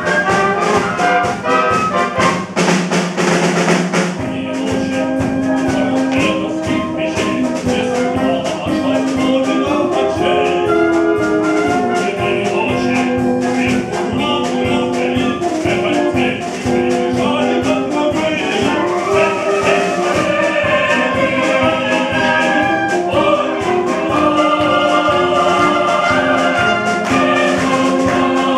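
A student wind band, brass and flutes, playing a song with voices singing the melody over it. A burst of broad noise fills the first few seconds before the held melodic lines take over.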